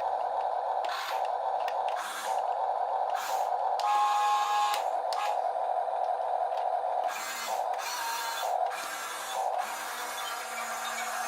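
Small electric gear motors of a remote-control toy drill excavator whirring in short bursts, about ten of them at irregular intervals, as its controls are worked, over a steady hum.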